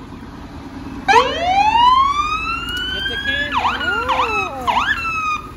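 Fire engine siren winding up: a rising wail that climbs over about two seconds from a low start, then slowly eases down, with three short, quick swoops over it near the end.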